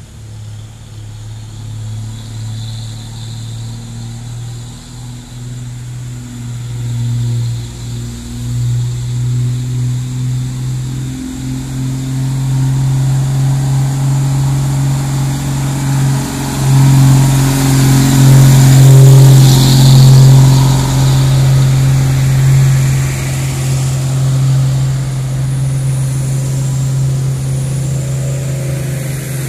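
Heavily loaded sugarcane trucks' diesel engines labouring slowly up a steep climb, a steady low drone that grows louder as a Mitsubishi Fuso truck approaches and passes, loudest about two-thirds in. The load is too heavy for them to go fast.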